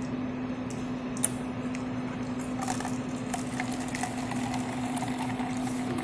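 Self-serve bean-to-cup coffee machine running through its grind-and-brew cycle: a steady hum with a sharp click about a second in. The sound grows busier from about halfway, as coffee starts to flow into the cup.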